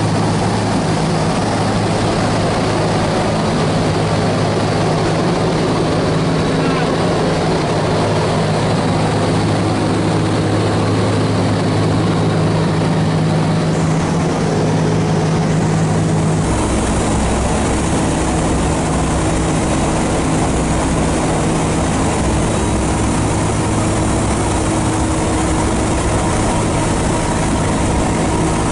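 Steady, loud drone of a B-17 Flying Fortress's four Wright R-1820 Cyclone radial engines and propellers in cruising flight, heard inside the nose compartment with a rush of air noise. A little past halfway the drone's tone shifts abruptly, with a deeper hum coming in.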